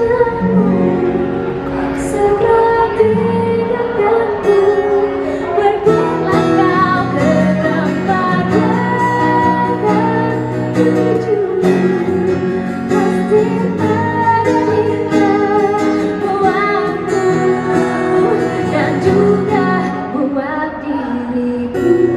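A song sung over acoustic guitar accompaniment.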